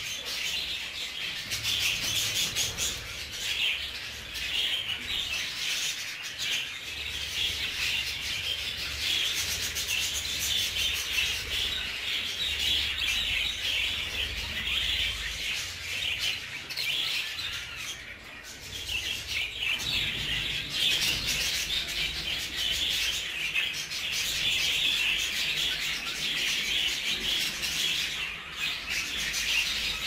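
A flock of budgerigars chattering and chirping continuously, a dense, busy twitter with no breaks.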